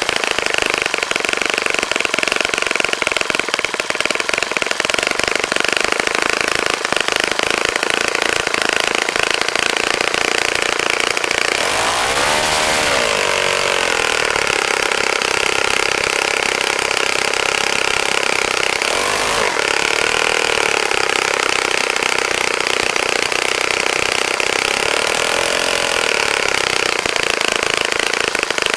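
Saito FA-65 four-stroke glow engine running steadily at high speed, about 13,000 rpm, swinging a 12x6 propeller on its first run after a rebuild. About twelve seconds in its pitch sags and climbs back, with two smaller dips later.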